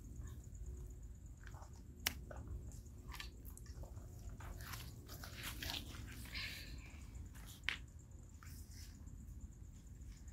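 Firewood crackling faintly in a metal brazier, with scattered small pops and two sharper snaps, about two seconds in and again about eight seconds in.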